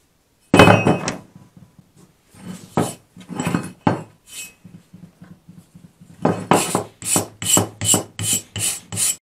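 A rusty double-bit axe head is set down on a wooden workbench with a sharp knock, then scrapes on the wood as it is handled. Near the end it is scrubbed with a hand wire brush in quick back-and-forth strokes, about nine strokes at roughly three a second, to strip the rust.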